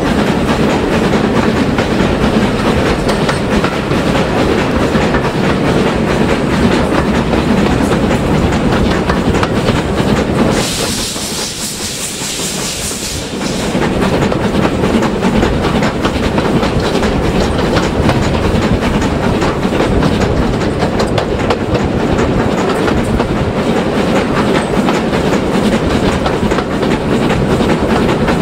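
Railway carriage running along the line, wheels clicking over rail joints with a steady rumble. About ten seconds in the rumble drops for around three seconds and a high hiss comes up, then the running noise returns.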